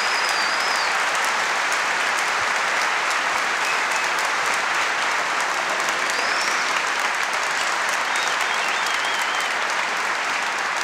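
A large audience applauding, steady dense clapping that holds at the same level throughout.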